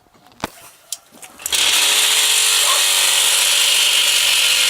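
A 220-volt mini sand-block making machine switches on about a second and a half in and runs steadily and loudly, its vibrator shaking the mould to compact the mix. A few knocks come just before it starts.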